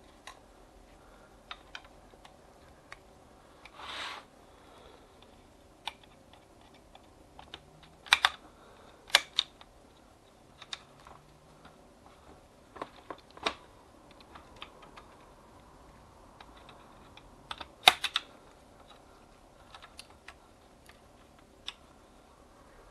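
Scattered plastic clicks and taps from a Sharp AR-M700 copier fuser unit's plastic housing and wiring being handled and taken apart, with a few sharper, louder clicks and a brief rustle about four seconds in.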